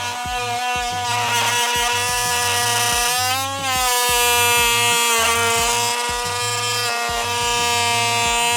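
Oscillating multi-tool with a bimetal wood-and-nails blade cutting through wood: a steady high motor whine whose pitch sags briefly about three and a half seconds in as the blade loads up.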